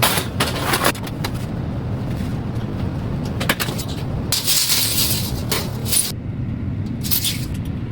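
A steady low hum, with a few clicks and knocks and two brief scraping sounds, about halfway through and near the end, from hand tools and lumber being handled while a door rough opening is measured and marked.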